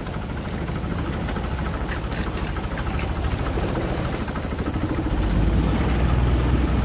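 Inboard engine of a long-tail canal boat running steadily underway, a rapid low pulsing; it grows louder about five seconds in.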